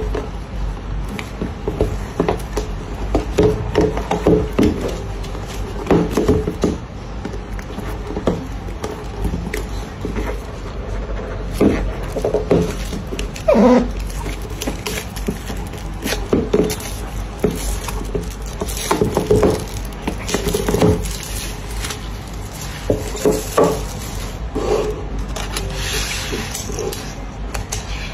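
Cardboard iPad box and its plastic shrink-wrap being handled on a wooden table: irregular rubbing, scraping and light knocks of the box against the tabletop, with a brighter papery rustle near the end as the lid comes off and the protective sheet is lifted.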